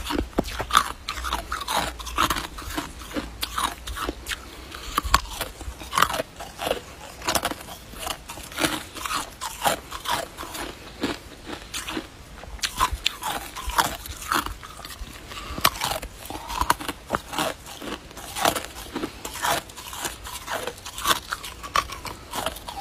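A person biting and chewing a hard icicle: a continuous run of sharp, irregular crunches and crackles as the ice breaks between the teeth.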